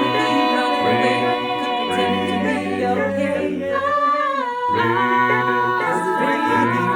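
A cappella vocal music: layered voices hold sustained chords without clear words, over a low sung bass part. About four seconds in, the lower voices drop out briefly, then all come back in.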